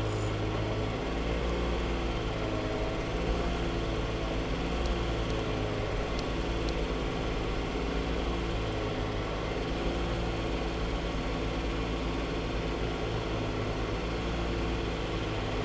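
BMW F80 M3's S55 twin-turbo inline-six idling steadily at operating temperature while the car runs its electronic engine oil level measurement.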